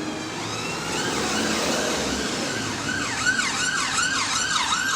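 Emergency vehicle siren in a fast yelp, its pitch rising and falling about three times a second, coming in about halfway through and growing louder over street traffic noise.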